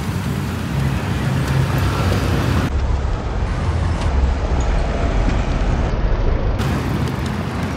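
Outdoor street noise: a steady low rumble with a haze of road sound and no clear single event.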